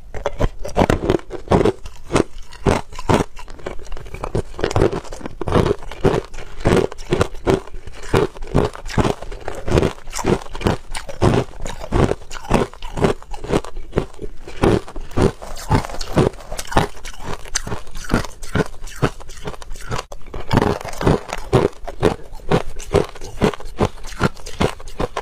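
A person chewing hard crushed ice right at the microphone: loud, sharp crunches of ice cracking between the teeth, about three a second, with a short lull near the end.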